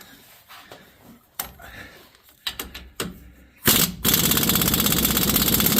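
An impact wrench hammering on a rusted rear leaf-spring U-bolt nut: a few clicks as the socket goes on, a short burst, then a steady rapid hammering from a little past halfway. The nut does not break loose.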